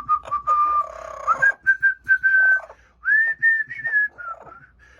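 A whistled tune of long, pure notes: a lower held note, then a glide up to higher notes held for about a second each, with short clicks between them.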